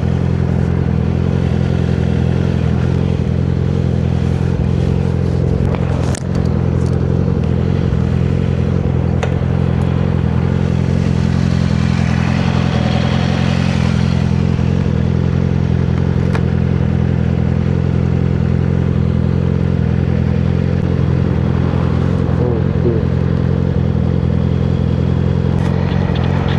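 Yamaha R6 motorcycle's inline-four engine running at a steady, unchanging speed, heard through the rider's helmet-mounted camera. A single sharp knock comes about six seconds in, and a hiss swells and fades about halfway through.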